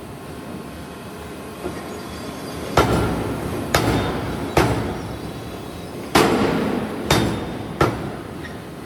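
Heavy forging hammer blows on a steel workpiece, about six strikes at uneven intervals, each followed by a short ringing decay, over a steady background of shop noise.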